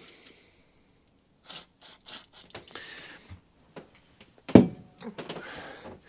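A short hiss of aerosol contact cleaner sprayed onto the open ignition breaker points of a Honda HR21 mower engine, cleaning the furred-up points. Then small clicks and handling noises, with a single sharp knock about four and a half seconds in.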